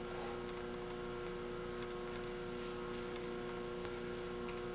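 Steady electrical mains hum in the recording, a low buzz made of several steady tones, with faint room tone.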